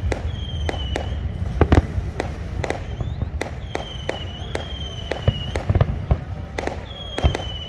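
Fireworks display: aerial shells bursting overhead in quick, irregular bangs. A high whistling tone sounds three times among them.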